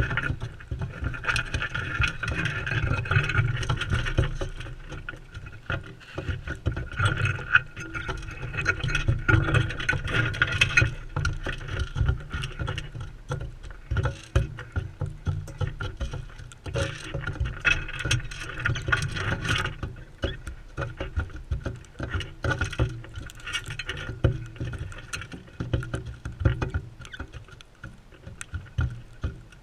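Crimson rosellas feeding right at the camera: many quick clicks and taps of beaks on seed and the feeder, over a steady low rumble of wind on the GoPro's microphone.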